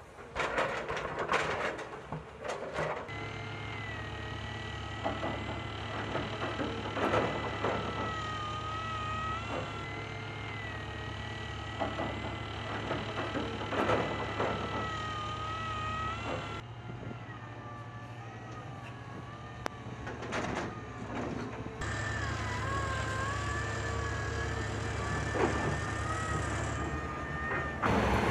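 Heavy construction machinery working on site: diesel excavator, rock drill rigs and dump trucks running with a steady low hum and a wavering high whine, broken by repeated sharp clanks and knocks. The sound changes abruptly several times.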